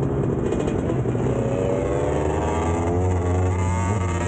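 Two-stroke dirt bike engine running and revving up, its pitch climbing steadily through the second half as the bike accelerates.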